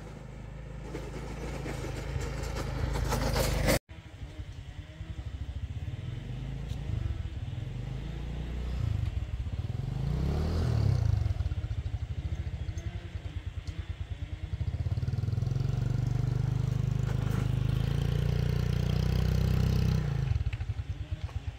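Small motorcycle engine running and being revved. It rises over the first few seconds and is cut off sharply, then runs at a lower steady speed, rises and falls again midway, holds higher revs for several seconds and drops back to idle near the end.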